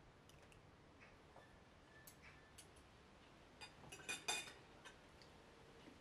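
Quiet table with faint clicks of cutlery against plates, and a quick cluster of louder clinks about four seconds in.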